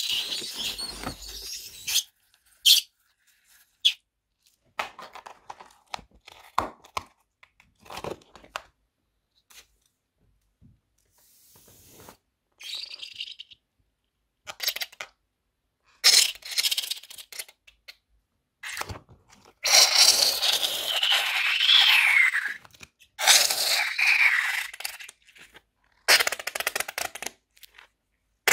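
Slime squeezed out through the neck of a rubber balloon onto foam-bead bricks: a series of short crackling squelches with gaps between them, and a longer stretch past the middle that carries a wavering squeal.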